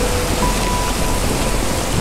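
Rushing floodwater pouring across a road in heavy rain: a loud, steady wash of water noise with a low rumble.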